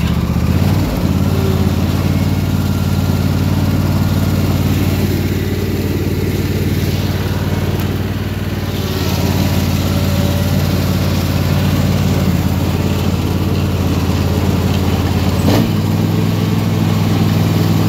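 Simplicity Broadmoor garden tractor's engine running steadily under load while towing a trailer full of firewood. Its note changes about a second in and again near the end, where there is a short click.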